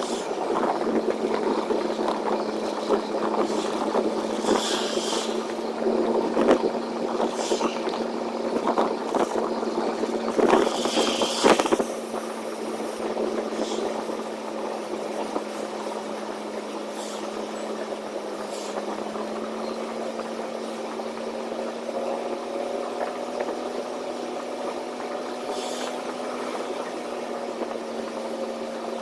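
Semi truck driving on the highway: a steady engine drone with road noise, and several sharp clicks or knocks in the first twelve seconds.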